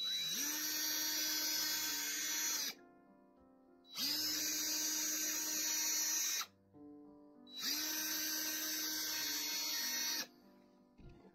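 Cordless drill drilling into a small metal part clamped in a vise, in three runs of about two and a half seconds each; each time the motor spins up quickly and then holds a steady whine. Background music plays underneath.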